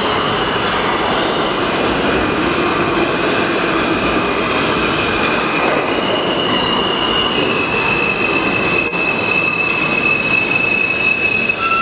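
R160 subway train pulling into the station: steady loud rumble and clatter of wheels on rail, with a high, steady squeal coming in about six seconds in and holding as the train slows.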